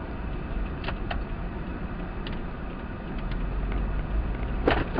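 Road noise inside a moving car picked up by a dashcam: a steady low rumble of engine and tyres with a few faint clicks, and a sudden sharp noise near the end.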